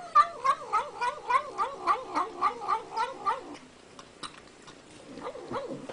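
Domestic cat giving a rapid run of short, wavering yowls, about four a second, that stops a little past halfway, followed by a few fainter calls near the end.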